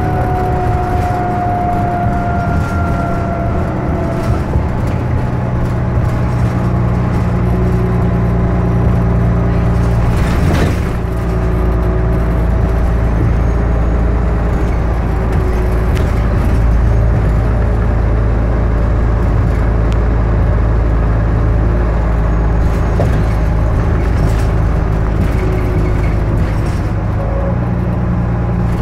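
A 2006 New Flyer D40i transit bus's Cummins ISL diesel and Allison automatic transmission running at cruising speed, heard from inside the passenger cabin: a steady low drone with road noise and thin whining tones above it. A brief rattle about ten seconds in.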